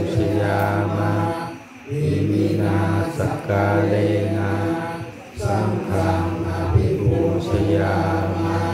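Group of Buddhist monks chanting in unison on a low, steady monotone. Long phrases are broken by short pauses for breath about two and five seconds in.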